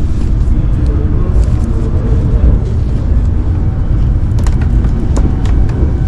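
Steady low rumble of the Tohoku Shinkansen Hayabusa bullet train running, heard inside the passenger cabin, with a few light clicks a little past the middle.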